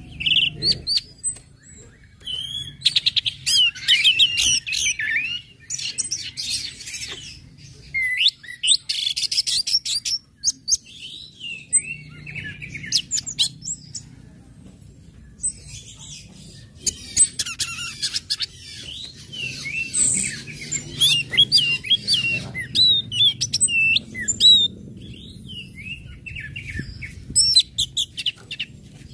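Orange-headed thrush singing: bursts of rapid chips and twittering, sweeping notes, broken by short pauses.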